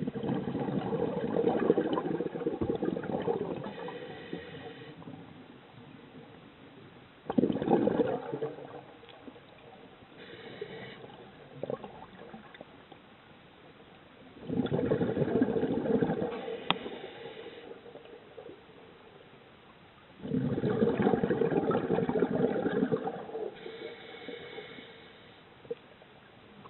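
Scuba diver breathing through a regulator underwater: four gurgling bursts of exhaled bubbles roughly every six seconds, each lasting a couple of seconds, with a faint whistle between them as breath is drawn in.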